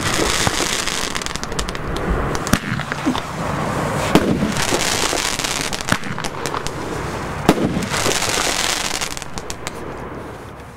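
Blackboxx Heyloo fireworks bursting in the air: sharp bangs of shots breaking, each followed by a long spell of dense crackling from the gold crackling stars, three such spells in all, fading away near the end.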